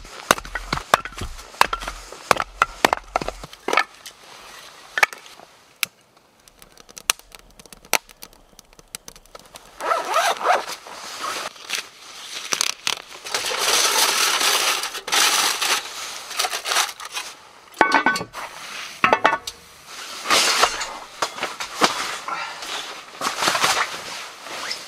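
Camp chores: a hatchet splitting firewood with a run of sharp knocks, then a long stretch of plastic wrap and netting being cut and torn off a frozen turkey, then handling and rustling noises as a sleeping bag is laid out on a cot.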